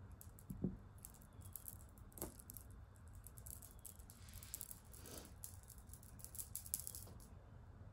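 Faint, scattered clicking and rattling of a multi-strand beaded necklace being handled, the beads knocking against each other.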